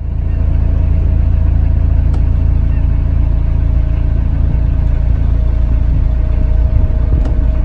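Narrowboat's diesel engine running at a steady pitch under way, with a heavy low rumble.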